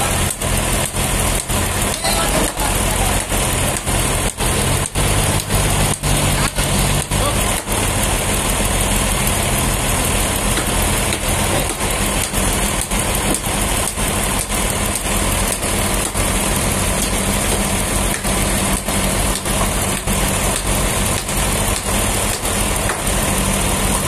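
Toyota forklift engine running under load as it lifts and positions a large log. The engine's pitch shifts about five and again about twelve seconds in.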